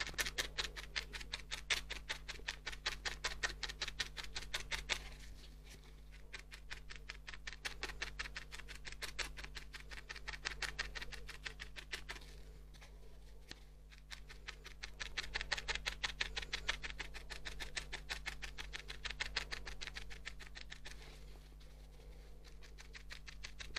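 Felting needle stabbing repeatedly into wool on a foam pad, a fast even rhythm of soft pokes at about four to five a second that grows softer for a few seconds twice, about five and twelve seconds in. The stabs are attaching brown wool to a white felted leg.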